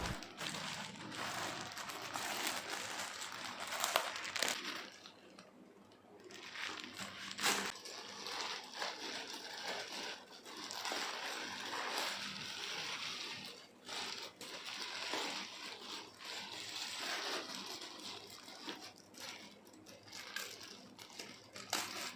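Plastic packaging crinkling and rustling in irregular handfuls, with scattered sharp crackles, as a parcel is torn open and unwrapped.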